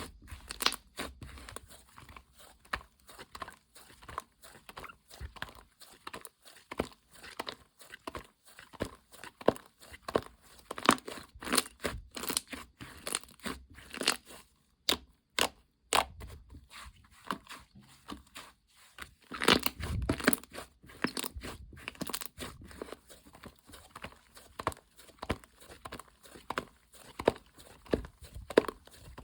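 Gingerbread dough slime being squished and kneaded by hand, giving a dense, irregular run of crackling clicks and pops.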